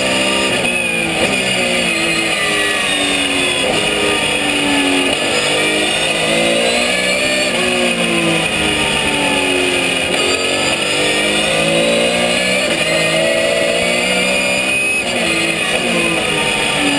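Porsche 991 GT3 Cup race car's naturally aspirated flat-six engine at racing speed, heard from inside the cockpit. The revs climb and drop again and again as the driver shifts up and down through the corners.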